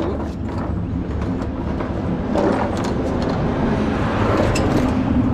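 Engine noise over a steady low rumble, swelling from about two seconds in, with a wavering hum that settles into a steady tone near the end.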